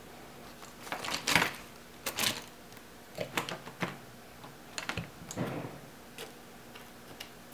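Irregular spells of light clicks and clacks with some rustling, the loudest a little over a second in, then several smaller clusters spread through the rest.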